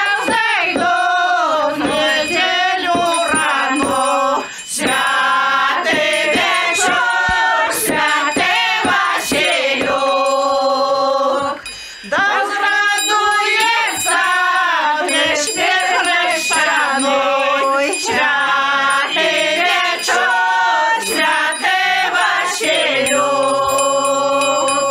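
A group of village women singing a Belarusian Shchadrets ritual carol (shchadrovka) in traditional folk style. The phrases run on with bending, ornamented pitch, and two of them end on a long held note, one about halfway through and one near the end.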